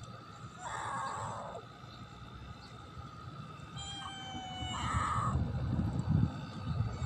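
Domestic cat meowing twice, a short meow about a second in and another about five seconds in. A low rumbling noise builds near the end.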